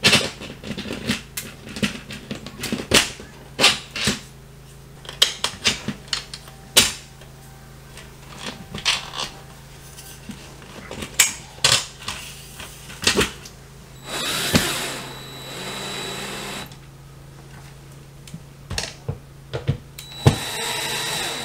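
Sharp clicks and knocks from a metal lighting track being handled against a ceiling. A cordless drill runs twice with a thin whine, for about two and a half seconds in the middle and again near the end, drilling into the ceiling for the track's anchors.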